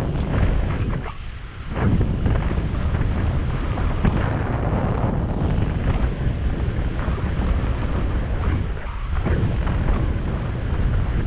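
Wind buffeting the microphone of a camera on a moving ride, a loud, rumbling rush that drops away briefly twice.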